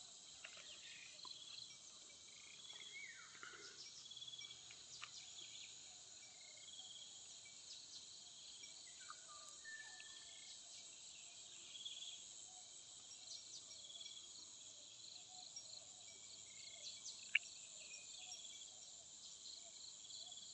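Faint rural ambience: a steady, high, pulsing chorus of crickets and other insects, with scattered short bird calls over it and one sharp click about seventeen seconds in.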